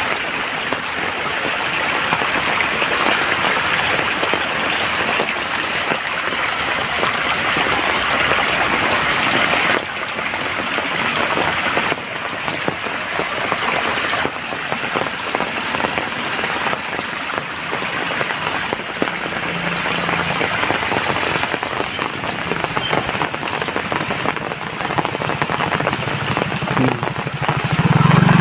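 Steady heavy rain falling on surfaces, a dense patter of many drops. Near the end a low engine hum comes in.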